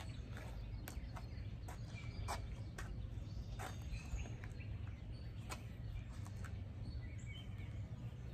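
Outdoor ambience: a steady low rumble with scattered bird chirps and a few faint clicks.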